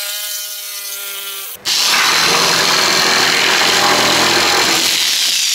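Power tools working a carbon-Kevlar fender panel: first a tool running with a steady whine, then about one and a half seconds in, a sudden change to a louder, even sanding or cutting noise with a high steady whine.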